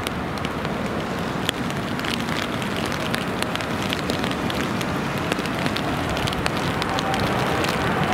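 Rain pattering, with many sharp drops ticking close by, over the steady rushing of a Boeing 777-300ER on final approach, its GE90 jet engines growing slowly louder as the aircraft nears.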